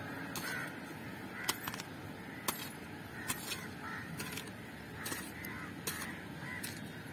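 Mammoty (short-handled hoe) blade chopping and scraping into red soil while a planting pit is dug, a sharp strike every second or so, with bird calls in the background.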